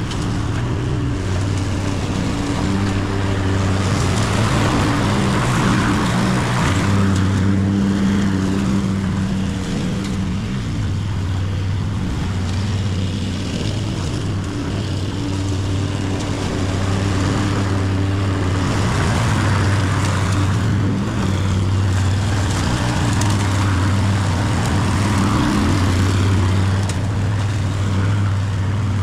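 Honda petrol walk-behind lawn mower running steadily while cutting grass. The cutting noise swells and fades several times as the mower is pushed back and forth.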